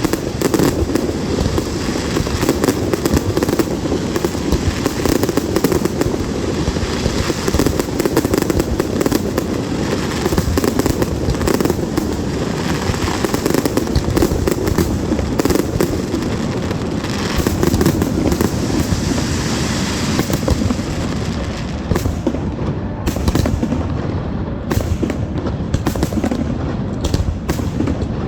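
Fireworks going off in a rapid, unbroken barrage of bangs and crackles. The strikes grow sparser and more separate in the last few seconds.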